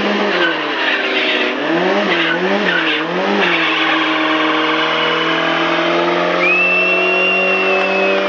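BMW 325is straight-six engine revving in a stationary burnout. The revs fall, blip up and down three times, then hold high and steady as the rear tyres spin and smoke, and a steady high-pitched tyre squeal sets in over the last couple of seconds.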